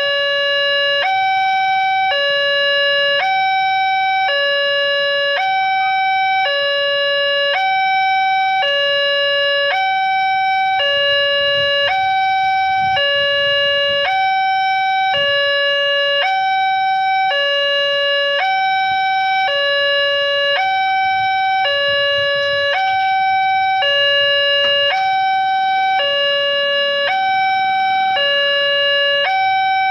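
Railway level-crossing warning alarm sounding its two-tone electronic signal: a lower and a higher tone alternating about once a second, steady and unchanging. It sounds while the lights flash and the barrier is down, warning that a train is coming.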